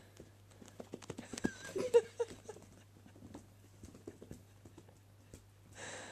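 A kitten's paws and claws patting and scratching on carpet in a run of irregular taps as it pounces at a laser dot, busiest in the first three seconds. About two seconds in comes a brief pitched, voice-like sound, the loudest moment, and near the end a short hiss.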